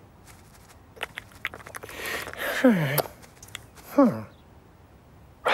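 Cartoon Foley and voice sounds: a few light taps and a short rustle, then two brief cat-like vocal sounds, each dropping steeply in pitch, about two and a half and four seconds in.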